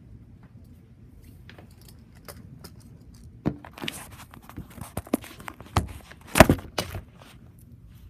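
A run of sharp clicks and knocks over a faint steady low background, starting about three and a half seconds in and loudest near six and a half seconds: handling noise from the phone being moved while filming through a window screen.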